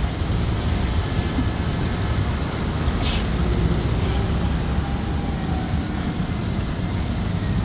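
Steady rumble of city street traffic, engines and tyres, with a brief hiss about three seconds in.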